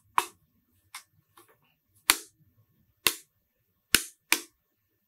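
Handling noise from unpacking a network switch from its molded pulp packaging tray: a series of sharp clicks and knocks, the loudest about a second apart.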